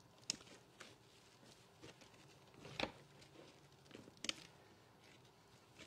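Hand squeezing grated potato and onion against a metal mesh strainer to press out the liquid: faint squelching with a handful of short, sharp clicks, the loudest about halfway through.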